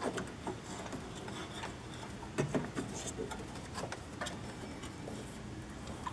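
Ribbed rubber serpentine belt rubbing and scraping against the pulleys and engine parts as it is fed by hand under the alternator pulley, with a few light taps and knocks.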